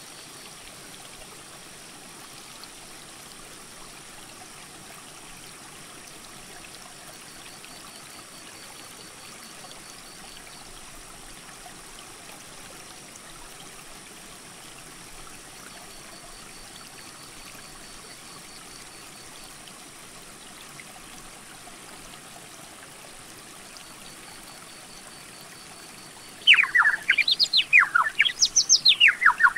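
Steady rush of a rocky mountain creek. A faint, high, trilling sound comes and goes a few times. Near the end a loud whistled bird song starts suddenly, in quick rising and falling sweeps.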